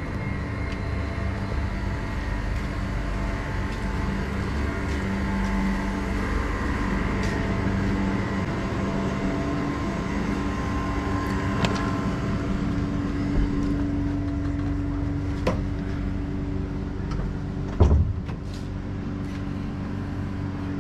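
A steady mechanical hum with a few held, even tones. There are scattered light knocks, and a louder thump about eighteen seconds in.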